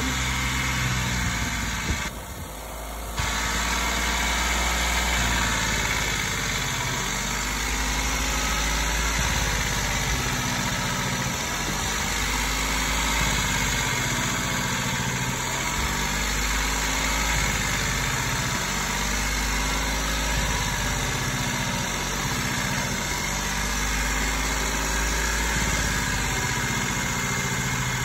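Citroën C1's three-cylinder petrol engine running at a held fast idle, with a steady vibration. Its note changes several times as single ignition coils are unplugged to drop one cylinder at a time, a test to find which cylinder is misfiring.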